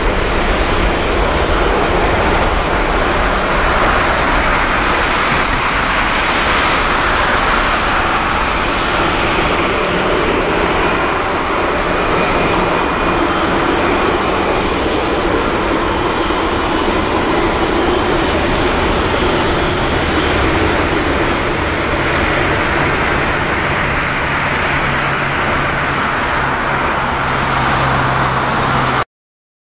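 Twin-engine jet airliner's engines at takeoff thrust during its takeoff roll: a loud, steady rush of jet noise with a high fan whine. It cuts off suddenly near the end.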